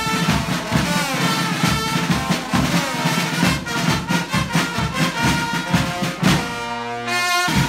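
Brass band music with trumpets and trombones over a steady drum beat. Near the end the band holds a long chord while the drums drop out.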